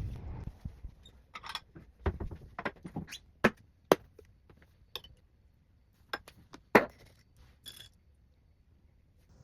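Small hard objects being handled and set down: a string of sharp clicks, clinks and light knocks at irregular intervals, about ten in all.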